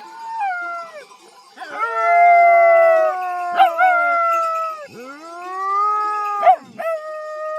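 A dog howling close by: four long, smooth, held howls that drop in pitch at the end of each.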